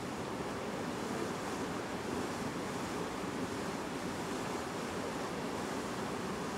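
Steady rush of wind and water, an even noise with no distinct events.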